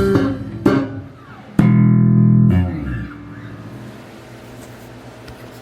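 Tobias Growler four-string electric bass played: a couple of sharply attacked notes, then about a second and a half in one loud note struck and held for about a second before it fades out, leaving a faint amp hum.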